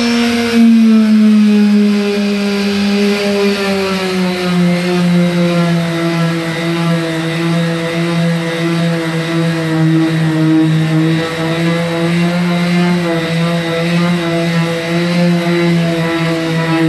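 Corded electric palm sander running steadily against a truck's body panel. Its steady motor whine sinks slightly in pitch over the first few seconds, then holds level.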